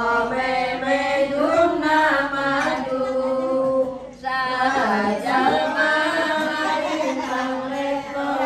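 A group of women and girls chanting together in unison, in drawn-out melodic phrases, with a short break about four seconds in.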